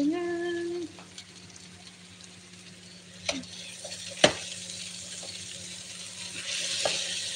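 The tail of a song ends in the first second. Then a wooden spatula stirs bitter gourd and ground meat frying in a granite-coated pot, with a sharp knock against the pan about four seconds in. The sizzle grows louder near the end.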